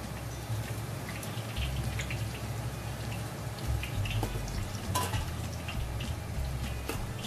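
Beaten egg frying crisp in a shallow pool of hot oil in a steel wok, with scattered crackles and pops. A metal spatula clicks against the wok a few times, most sharply about five seconds in, over a low hum.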